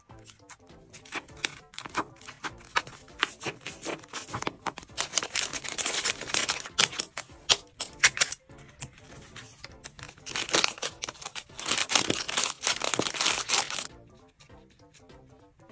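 Clear plastic wrap and a cellophane bag crinkling and crackling as they are handled, snipped with scissors and sealed, loudest in two stretches in the middle and dying down near the end; background music plays under it.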